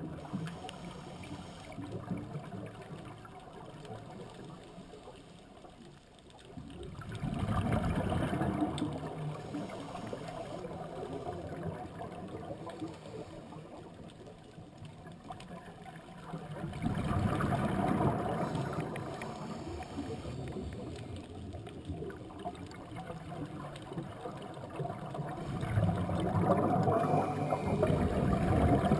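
Scuba regulator heard underwater: three long gurgling bursts of exhaled bubbles, about nine seconds apart, over a lower steady underwater noise between breaths.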